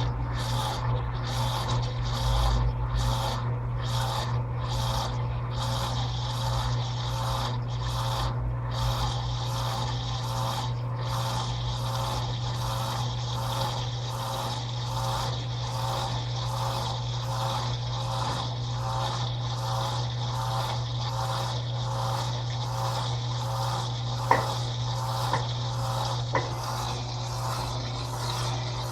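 Electrolux Turbo Capacidade LTP15 top-load washing machine agitating. It makes a rhythmic swish of water and clothes, a little over one stroke a second, over the steady hum of the motor. Two sharp clicks come near the end.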